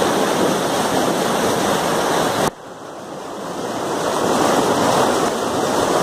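Waterfall rushing down a narrow rock chute, close to the microphone. About halfway through the sound drops off abruptly, then swells back up over a couple of seconds.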